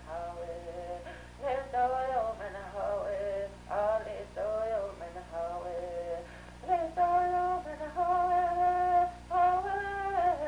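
A voice singing a slow melody, the notes held longer and steadier from about two-thirds of the way through.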